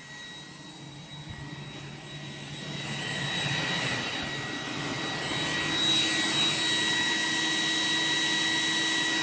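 iRobot Roomba 980 robot vacuum running, its vacuum fan making a steady high whine over a rushing noise. It grows louder about three seconds in.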